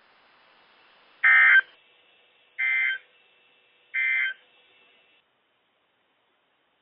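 Emergency Alert System end-of-message data bursts over NOAA Weather Radio: three short buzzy digital tone bursts about 1.4 s apart, the first the loudest, marking the end of the warning. The receiver's faint background hiss cuts off a little after five seconds.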